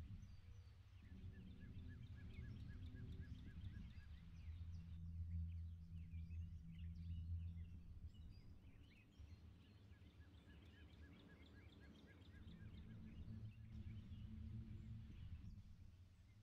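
Faint low rumble of wind and distant thunder that swells and fades. Birds call over it: twice, a fast trill of evenly spaced short notes, about five a second, among scattered higher chirps.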